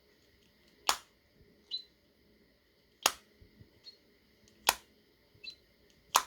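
Samsung Galaxy Buds in a charging case whose battery has run out, making sharp clicks four times at slightly uneven intervals, each followed by a fainter tick with a brief high tone.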